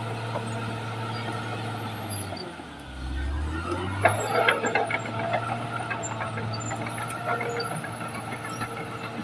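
Caterpillar D6R XL bulldozer's diesel engine running steadily. Its note dips lower about two and a half seconds in, then picks up again. From about four seconds in there is a run of sharp clanks and clatters from the machine working.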